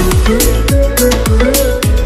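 Background music with a steady dance beat: a deep kick drum that drops in pitch on each hit, crisp hi-hats, and a repeating melodic line.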